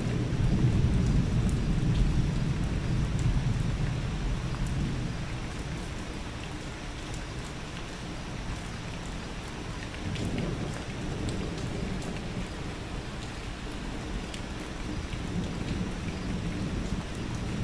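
Steady rain with rolls of thunder rumbling low. The thunder is loudest over the first few seconds and swells again about ten seconds in.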